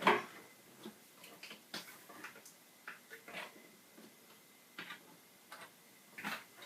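Irregular light clicks and taps, a few each second, with a louder knock right at the start: hands handling and pressing at an iMac G4 that is not powering on.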